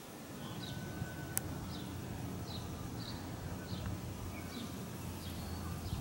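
Wind rumbling on the microphone, with a short high chirp repeating roughly once a second in the background and a single sharp click about a second and a half in.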